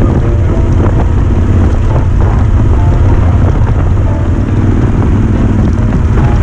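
Wind rushing over the microphone, with the low steady drone of a Yamaha XT1200Z Super Ténéré's parallel-twin engine running at road speed.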